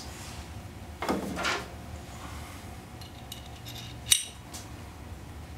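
Metal parts of a bearing-cup installation tool being handled: a short scrape about a second in, then a sharp click about four seconds in, over a steady low hum.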